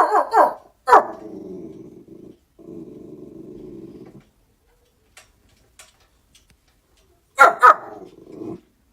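A dog barking a few quick times, then growling low in two long stretches; after a pause it barks twice more and growls briefly.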